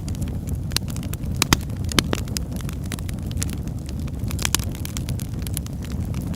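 Wood fire crackling in a fireplace: a steady low roar of the flames under frequent sharp pops and snaps, the loudest a pair about a second and a half and two seconds in.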